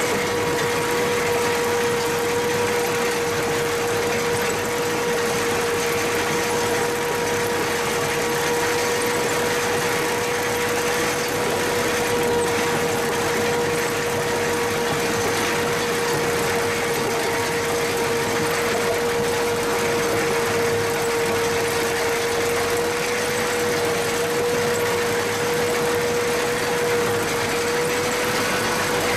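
Tractor-drawn pumpkin harvester running steadily as pumpkins are fed through it: a dense mechanical noise with a constant high-pitched whine.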